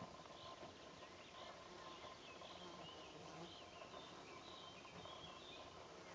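Near silence of an open meadow, with faint, irregular high chirps of distant small birds scattered throughout.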